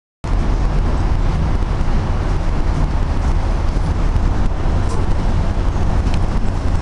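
Busy city street traffic heard from above: a steady, loud din of car and taxi engines and tyres with a heavy low rumble.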